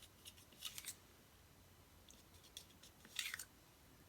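Near silence broken by a few short, faint scrapes and clicks of a stir stick working mixed acrylic pouring paint in a cup. The longest scrape comes about three seconds in.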